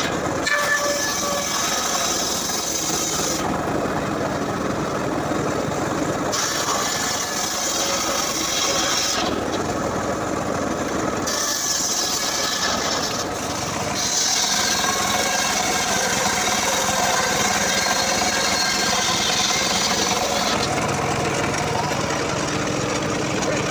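Homemade circular saw bench ripping a log lengthwise: a steady, loud rasping cut of blade through wood. The sharper, hissing edge of the sound drops out and comes back abruptly several times.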